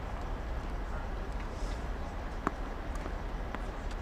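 Tennis ball struck with a racket, one sharp pop about two and a half seconds in, with a few fainter ball knocks around it. Under it runs a steady low rumble.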